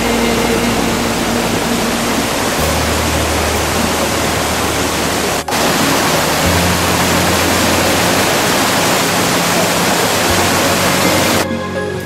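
Creek water rushing and cascading over rocks and fallen logs, a loud steady rush, with soft background music underneath. The rush drops out for an instant about five seconds in and stops near the end, leaving only the music.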